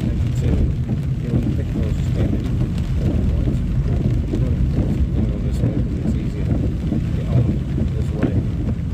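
Steady low rumble inside a moving car on rain-soaked roads: tyres on wet tarmac and the engine running, with heavy rain on the windscreen.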